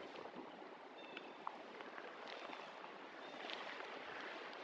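Light drizzle falling on leaves and plants: a faint, even hiss with a few tiny drip ticks.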